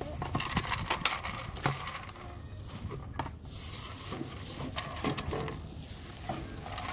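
Scattered clicks and rattles of a plastic feeder ball being knocked and rolled about on dirt by an animal's snout.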